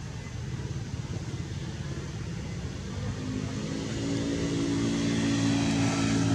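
A motor engine running at a steady speed under a low rumble, growing louder with a steady hum from about halfway through.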